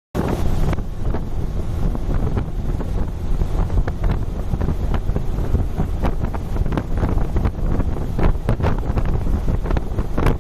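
Wind buffeting the microphone: a constant low rumble with uneven gusts.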